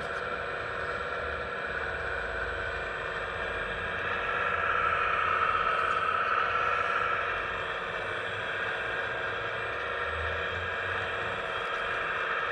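Scale RC Hitachi ZX135US hydraulic excavator model running with a steady whine from its hydraulic drive. The whine swells for a few seconds in the middle as the boom and arm move.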